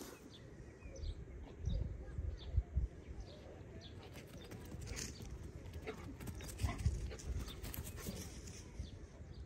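Dogs running over grass close to the microphone, their paws landing in irregular soft thuds.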